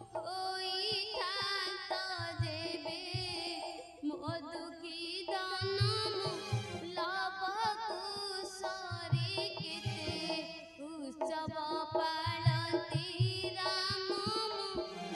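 Devotional folk-theatre song: a voice sings a wavering, ornamented melody over instrumental accompaniment, with low drum strokes coming in small clusters.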